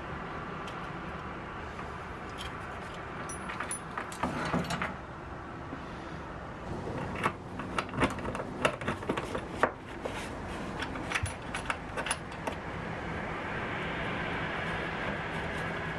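Small steel leghold trap (a mink or muskrat trap) being handled and set by hand: sharp metallic clinks and clacks from its jaws, springs, pan and chain, in a short flurry around four seconds in and a longer run of them from about seven to twelve seconds. Under them a steady background noise swells into a hiss near the end.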